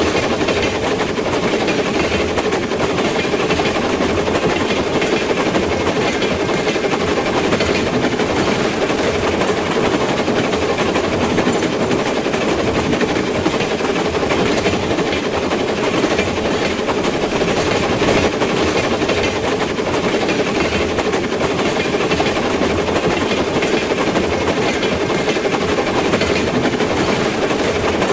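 A train running along the track: a loud, steady rumble that holds without a break.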